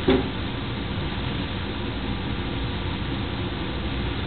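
Steady background hum and hiss, even throughout, with no distinct sounds standing out.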